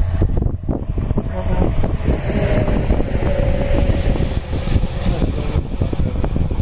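Wind buffeting the microphone: a loud, low rumbling rush broken by constant gusty thumps, with a faint steady hum underneath.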